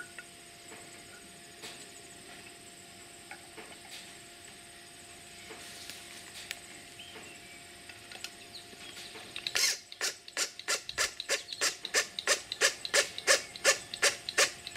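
Cordless drill driving a screw into a pressure-treated 2x4, heard as a run of sharp, evenly spaced clicks about four a second that starts about two-thirds of the way in and grows louder toward the end.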